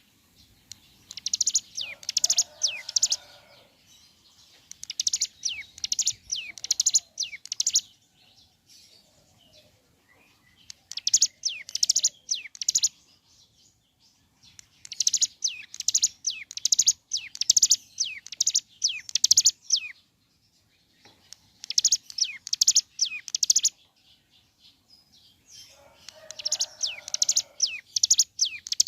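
Ciblek gunung (a mountain prinia) singing in rapid high-pitched chattering bursts of quickly repeated, downward-sweeping notes. The bursts last a few seconds each and come back after short pauses.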